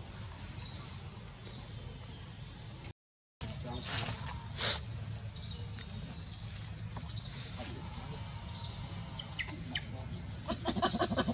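A steady, high pulsing chorus of forest insects and birds chirping. Near the end a baby long-tailed macaque starts crying in quick, pulsed whimpers. The sound cuts out briefly about three seconds in.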